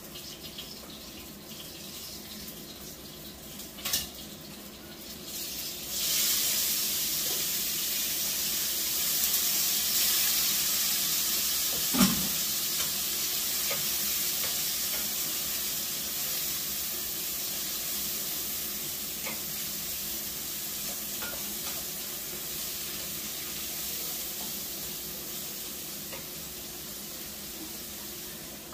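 Food frying in a hot pan on the stove: a loud sizzle starts suddenly about six seconds in, then goes on while it is stirred, slowly dying down. There is a click before the sizzle starts and a single knock of a utensil against the pan near the middle.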